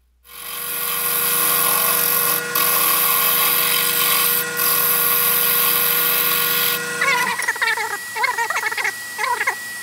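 Wood lathe spinning a wooden pen blank while a carbide finishing scraper shaves it smooth, a loud steady whine and hiss of cutting with two brief dips. About seven seconds in the cutting hiss drops away, leaving the lathe's high whine with wavering squeaky tones over it.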